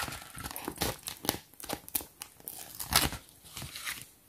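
A small printed sticker being peeled off its paper backing sheet by hand: a run of short, irregular crackles and crinkles of paper.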